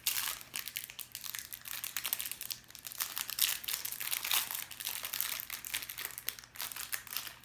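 Crinkling and rustling of a trading card pack's plastic wrapper and cards being handled, a steady run of irregular crackles.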